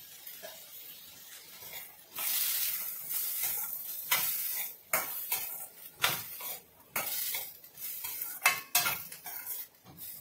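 A steel spoon stirring diced vegetables in a stainless steel kadai over a gas flame, scraping and clinking against the pan while the vegetables sizzle in oil. The stirring comes in uneven strokes, starting about two seconds in.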